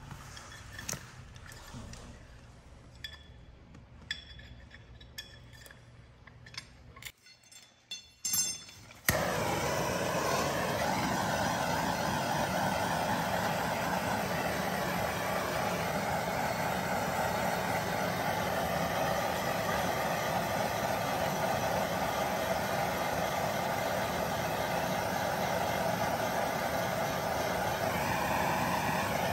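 A few scattered clinks of metal tools, then about nine seconds in a hand-held gas torch flame starts with an abrupt, steady hiss that holds on. The flame is heating a shock absorber's aluminium top cap to loosen its thread locker.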